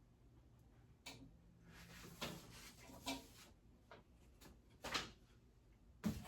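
Flat-pack dresser parts being handled during assembly: a few hard knocks about a second in, near five seconds and near the end, with scraping and rustling in between.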